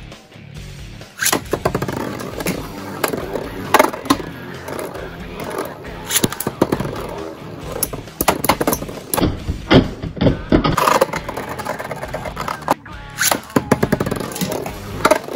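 Metal Fight Beyblade spinning tops battling in a plastic stadium: repeated sharp metal clacks as the tops collide, some in rapid clusters, over the scraping of their spinning tips on the stadium floor. The loudest hits come about 4 seconds in and near 10 seconds.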